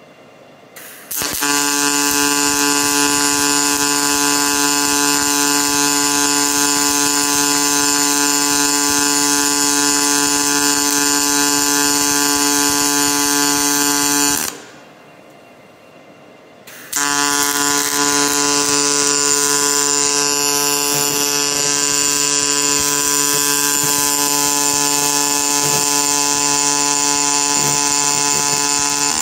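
Robotic MIG welding arc buzzing with a steady, even tone: two welds of about thirteen seconds each, the first starting about a second in, with a pause of two or three seconds between them.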